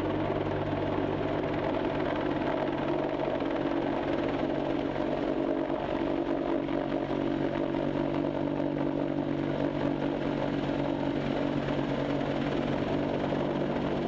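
AH-64 Apache helicopter's turbine engines and rotor running steadily, a continuous drone of several held tones. A new higher tone joins about three seconds in.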